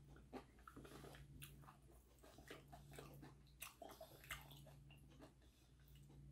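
Faint crunching and chewing of crispy deep-fried chicharon bulaklak (pork mesentery): a string of irregular small crackles over a low steady hum.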